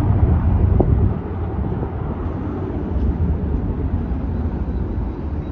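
Steady low rumble of a Boeing 737-800's CFM56 jet engines on take-off, mixed with wind buffeting the microphone.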